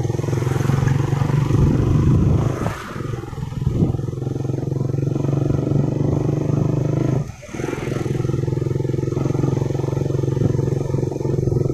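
Vehicle engine running steadily on the move, with a short drop in level about seven seconds in.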